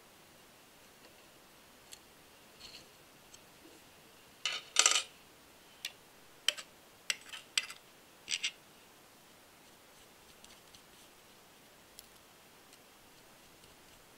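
Small metal model-engine parts clicking and clinking against a metal tray as they are picked up and handled. A louder clatter comes about five seconds in, then a string of single sharp clicks, then only faint ticks.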